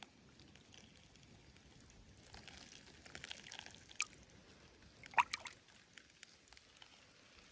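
Steady light rain with faint trickling, and a few brief faint rustles or clicks in the middle.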